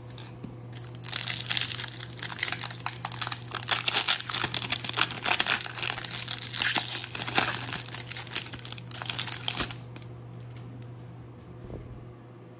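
Plastic-foil wrapper of a 2020 Topps Opening Day baseball card pack being torn open and crinkled by hand. The crackling starts about a second in and dies away about ten seconds in as the cards are slid out.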